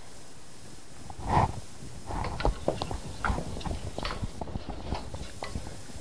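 Cookware being handled on a stovetop: a single louder clunk about a second in, then a run of irregular light knocks and clinks of metal on a pot.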